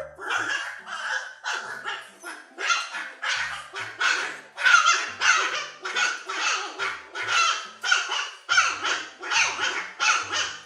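A dog barking rapidly and repeatedly, about two short, sharp barks a second.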